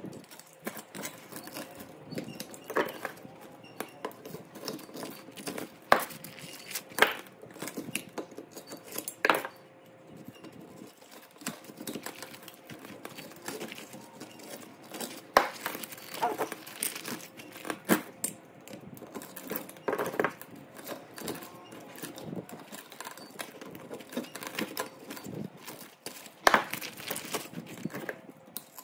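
Irregular metallic clinks, taps and scraping from hand tools working the burnt copper winding out of a three-phase electric motor's stator, with a sharper knock every few seconds.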